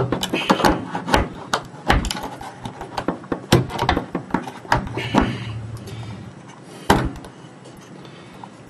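Metal clip-on concealed cabinet hinge being worked onto its mounting plate by hand: a run of irregular clicks, knocks and rattles of metal on metal and against the cabinet. A single sharp click about seven seconds in stands out, with little sound after it.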